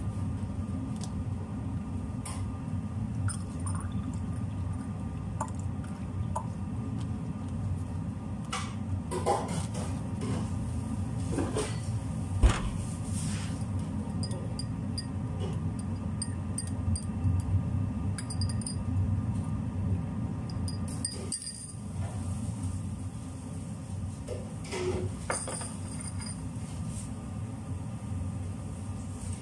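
Steady low kitchen hum with scattered clinks of glass and dishes, and one sharp knock about twelve seconds in.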